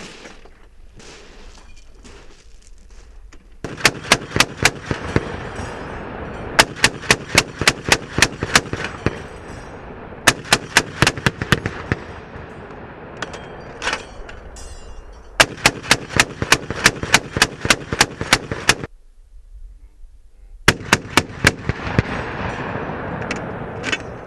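M2 .50 caliber heavy machine gun firing a string of bursts of rapid shots, each burst a second or more long with short pauses between. Quieter clicks come before the first burst, about three and a half seconds in.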